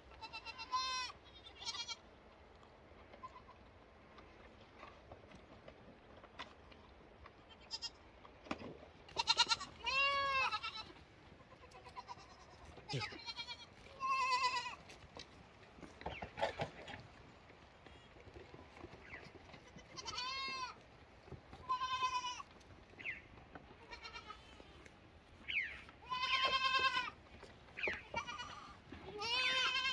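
Young goat kids bleating: about a dozen short, high calls that rise and fall in pitch, coming at irregular intervals with quiet gaps between them.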